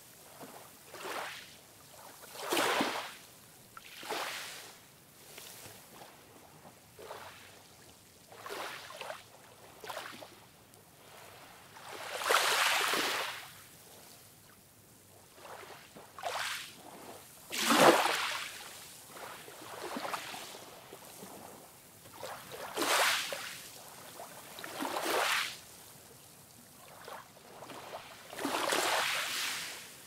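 Small ocean waves breaking and washing up a sandy beach: a run of soft rushing surges every couple of seconds, each swelling and fading, some louder and longer than others.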